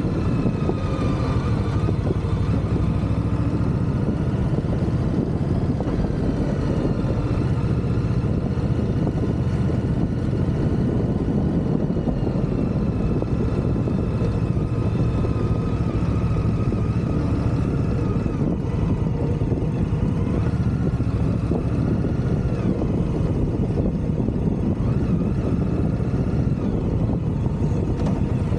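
Indian Scout motorcycle's V-twin engine running while cruising on the road, its note rising and falling several times with the throttle, over a steady low rush of noise.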